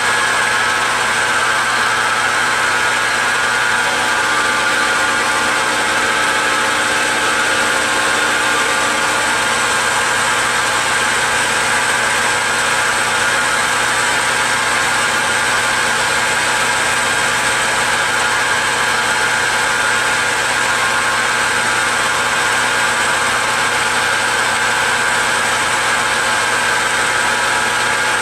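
Metal lathe running steadily at 1200 RPM, its motor and gearing giving a constant whine made of several fixed tones, while a carbide tool takes a dry cut on an aluminium pulley blank.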